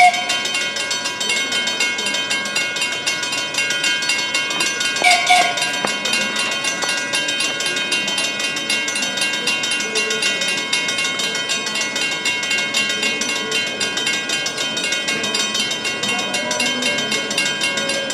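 Grade-crossing warning bells ringing without a break as a train approaches, with a short horn blast about five seconds in and the train's rumble growing toward the end.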